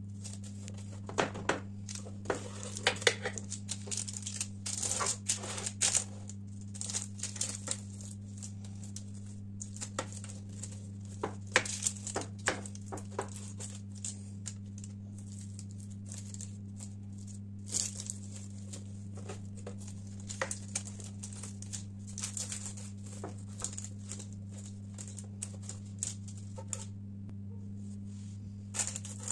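Knife cutting through the crisp, flaky crust of a baked börek on a parchment-lined tray: irregular bouts of crackling and crunching, with the baking paper crinkling. A steady low hum runs underneath.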